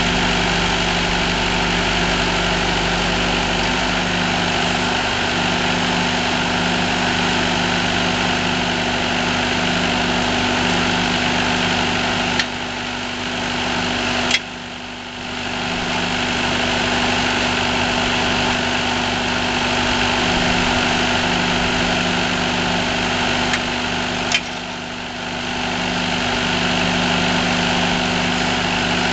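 A firewood processor's engine running steadily. Twice, about twelve and twenty-four seconds in, a sharp click is followed by a dip in the sound lasting a couple of seconds before the steady running resumes.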